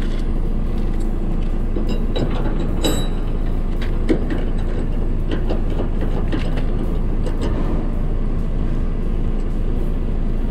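DAF truck's diesel engine running steadily at idle, with a few scattered clicks and knocks over it, the sharpest about four seconds in.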